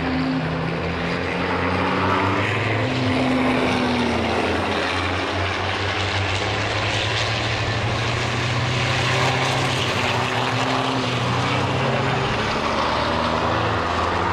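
Several racing trucks' big turbodiesel engines running hard in close succession, their overlapping engine notes rising and falling in pitch over a steady rush of noise.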